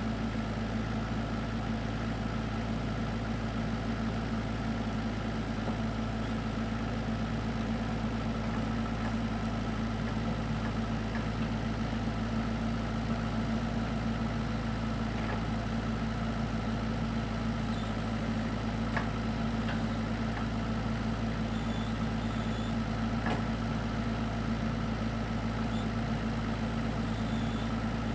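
Kubota KX121-3 mini excavator's diesel engine idling steadily.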